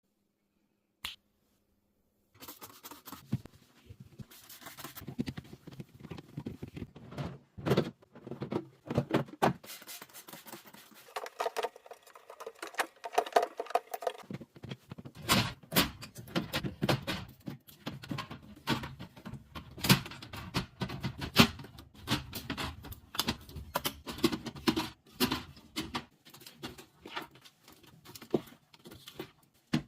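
Containers, jars and packaging being handled and set down in a fridge: a busy, irregular run of clicks, taps, knocks and light clatter, with some rustling, starting a couple of seconds in after a single click.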